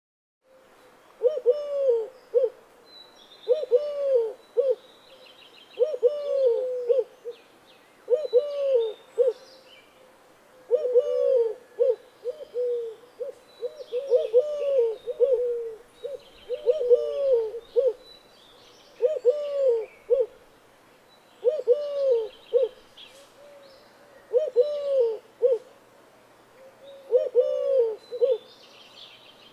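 A dove cooing, repeating the same short phrase of a few arched coos about every two and a half seconds, with faint higher-pitched chirping in the background.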